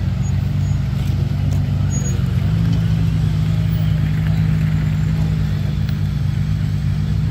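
Rock buggy's engine running steadily at low revs. The revs step up slightly about two and a half seconds in, then hold.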